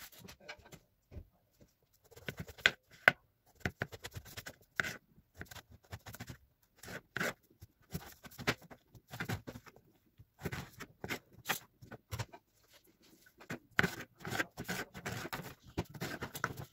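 Kitchen knife slicing through a raw eggplant lengthwise on a plastic cutting board: irregular cutting strokes with the blade tapping on the board, coming thicker near the end.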